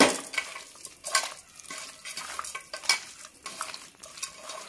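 Raw mutton being mixed by hand with spice paste in an aluminium pressure cooker pot: irregular wet squelching with a few sharper clicks and knocks against the pot. The loudest come right at the start, about a second in, and just before three seconds.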